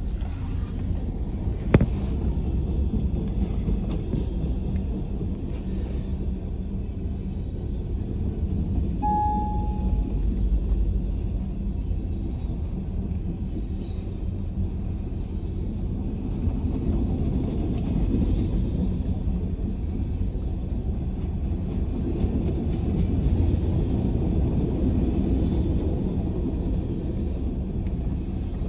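Freight train of covered hopper cars rolling past at a steady speed: a continuous rumble of steel wheels on rail, with one sharp click about two seconds in and a short beep about nine seconds in.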